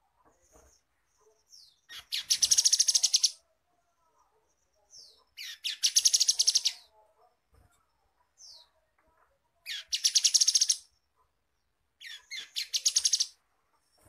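Grey-headed canary-flycatcher (Culicicapa ceylonensis) singing: four high, fast trilled phrases of about a second each, one every three to four seconds, each opened by a short sliding note.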